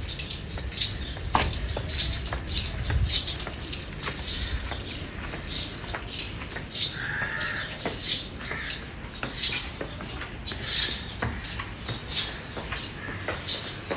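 Metal bells worn by a walking cow jingling in step with her strides, an uneven clinking about once or twice a second.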